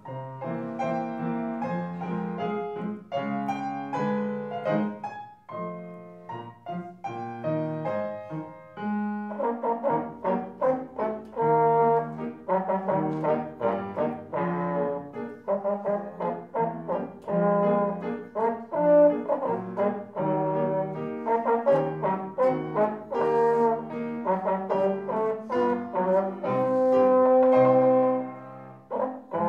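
Slide trombone playing a solo melody with piano accompaniment, building to a long, loud held note near the end.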